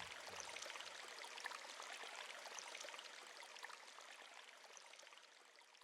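Faint running water of a stream, a steady trickling hiss that fades out near the end.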